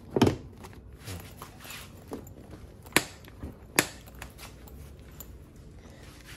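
Honda ADV150 scooter seat pressed shut over the under-seat storage with a thump, followed by light handling knocks and two sharp clicks, a little under a second apart, from the seat and rear luggage rack.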